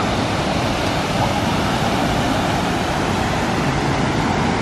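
Steady rushing noise of the volcano's waterfall pouring into the wave pool, with wind on the microphone.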